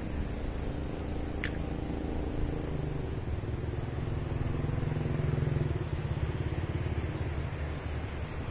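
A road vehicle's engine running and passing by, growing louder about four to six seconds in and then easing off, with a brief high chirp about a second and a half in.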